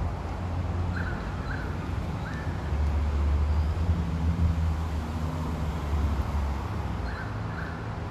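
Steady low rumble of a motor vehicle engine, with a bird giving three short chirps about a second in and again near the end.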